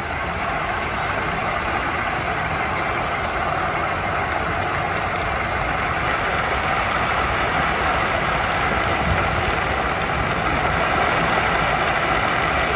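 A steady, dense rumbling noise from a light-and-sound show's soundtrack over outdoor loudspeakers, growing slightly louder.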